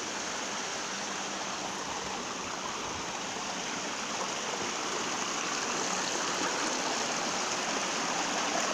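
Steady rush of flowing water from a rocky stream.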